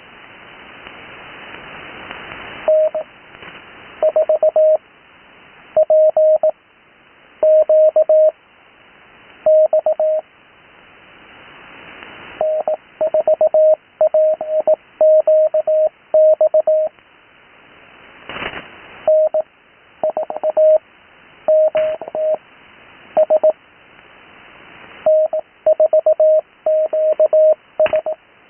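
Morse code (CW) heard through an HF receiver on the 80 m band: a steady tone of about 600 Hz keyed in groups of dots and dashes with pauses between characters. Band hiss swells in each pause, and a few sharp static crackles come through.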